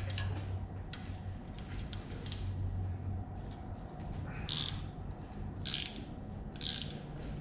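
Wrench strokes turning a seized bolt on a Ford 302 V8, the stud squeaking in its threads as it backs out, about once a second from a little past halfway. A steady low hum runs underneath.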